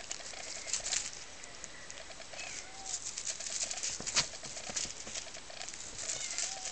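Two Birman kittens scrabbling about while batting at a feather teaser wand: a run of light, irregular taps and scratches from paws on the floor covering, with the toy rustling.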